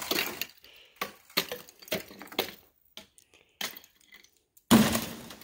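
Rocks thrown or rolled onto frozen pond ice: a string of crunching, clattering impacts, the loudest crunch about three-quarters of the way through. The ice is too thick to break through.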